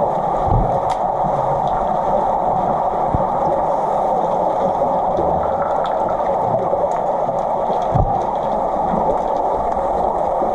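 Underwater pool sound heard through a submerged camera: a steady muffled hiss with a few dull low thumps, one about half a second in and one about eight seconds in, and faint scattered clicks.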